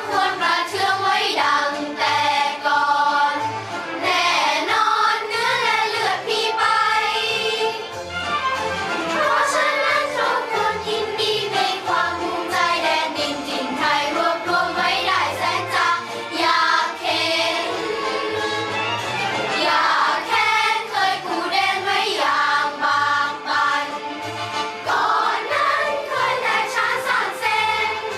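Children's choir singing a song together over a low accompaniment that pulses about once a second.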